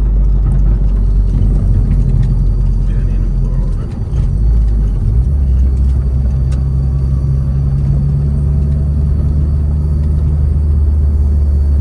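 Acura RSX (DC5) driving, its engine and road noise a steady low drone; about four seconds in the sound dips briefly and then holds at a higher pitch.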